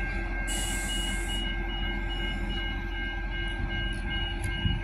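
3000/3100-class diesel railcar standing at a platform, its engine idling with a low hum and steady high-pitched whine. A short hiss comes about half a second in, and an electronic beep pulses about three times a second before stopping near the end.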